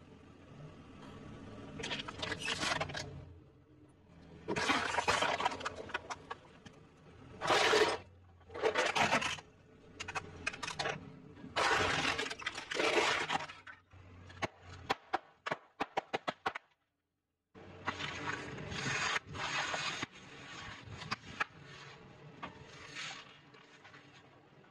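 Objects being crushed under a car tyre: plastic cracking, crunching and scraping in several separate bursts. A run of quick snapping clicks comes a little after the middle, followed by a brief dropout.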